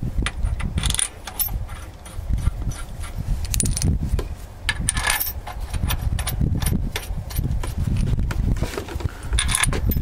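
Steel bolts clinking against the metal of a bulldozer's clutch and brake housing as they are handled and set in place. There are several sharp metallic clinks over a low rumble.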